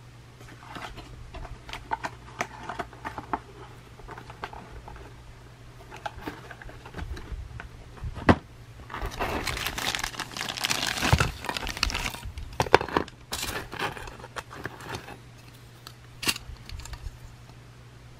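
Thin clear plastic bag crinkling and rustling as Plarail speed-change plastic rail pieces are handled and slid out of it, loudest and densest about halfway through. Light clicks and knocks of the hard plastic rails come before and after.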